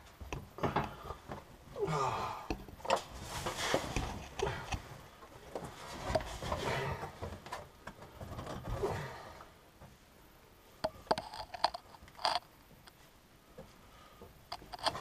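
Irregular scraping, rattling and clicking of hands working the wiring harness and plastic connector on top of a lowered fuel tank, busiest in the first nine seconds, then quieter with a few sharp clicks later on.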